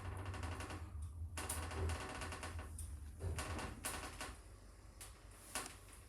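Passenger lift operating: a low motor hum with rapid rattling ticks through the first half, then a few separate sharp clicks.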